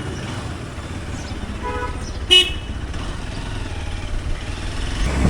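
Hero Xpulse 200 Pro's single-cylinder engine running steadily on the road. A vehicle horn toots once, short and loud, a little over two seconds in.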